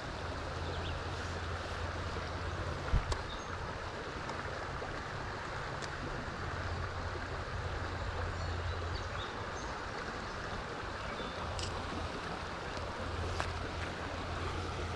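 Steady rush of stream water, with a low rumble underneath and a brief knock about three seconds in.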